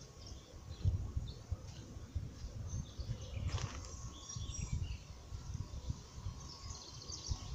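Riverbank ambience: faint bird chirps over low, gusty rumbling of wind on the microphone.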